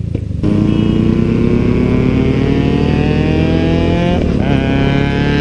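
Motorcycle engine under hard acceleration, its pitch climbing steadily, then a quick upshift about four seconds in and the pitch climbs again.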